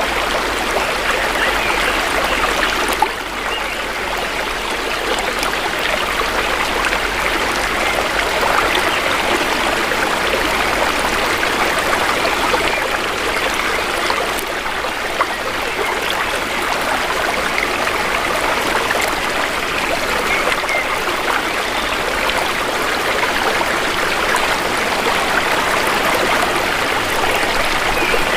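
Shallow river water flowing steadily, an even rushing and trickling, with one brief tap about three seconds in.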